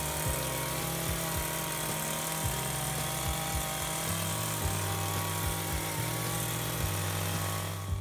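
Power hedge trimmer running steadily: a loud hiss over a low motor hum. It cuts off suddenly at the end.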